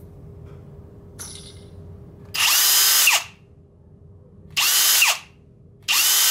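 Cordless drill run in three short bursts, each under a second, its motor whine falling away as it stops. It is spinning a router bit whose stiff, notchy bearing has just been freed with router bearing lubricant.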